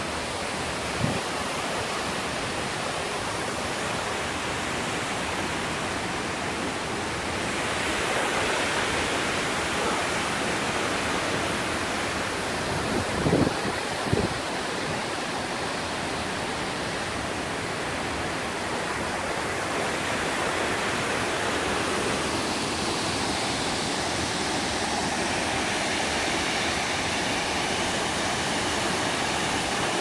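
Waterfall rushing, a steady even roar of falling water, a little louder from about a quarter of the way in. A short thump about a second in and a few brief knocks near the middle.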